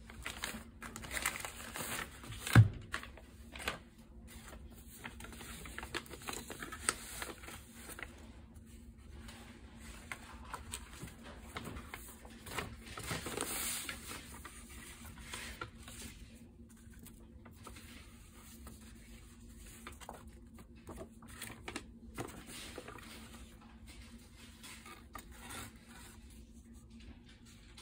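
Paper and plastic packaging rustling, crinkling and tearing as a wrapped stack of loose notecards is opened and the cards are handled, with one sharp knock about two and a half seconds in and a longer rustle around the middle.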